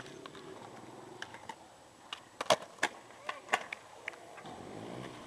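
Skateboard clacks: the tail popping and the board slapping down on hard ground, a cluster of sharp knocks after a quiet first two seconds.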